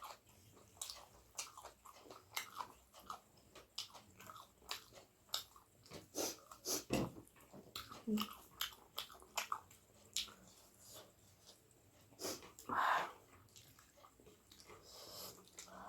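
Close-up mouth sounds of a person eating a curry meal: irregular wet chewing and lip smacks, with one brief louder sound about three-quarters of the way through.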